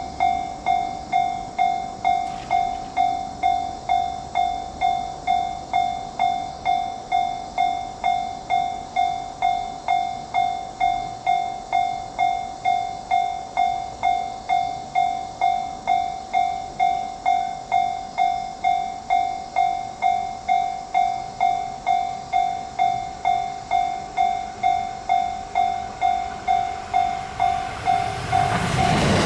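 Japanese level-crossing warning bell (electronic 'kan-kan' type) ringing steadily, a little under two dings a second. Near the end an oncoming train's rising rush grows loud and drowns it out.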